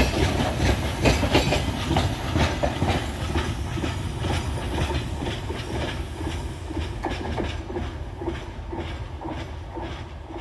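Freight train's open wagons rolling past, their wheels clacking over the rail joints over a low rumble, the clatter fading steadily as the end of the train moves away.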